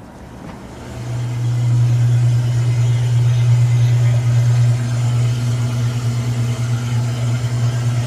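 The 1931 Frigidaire refrigerator's running compressor gives a steady low hum that grows louder about a second in. Behind it is a faint hiss of refrigerant boiling in the evaporator as the system is charged.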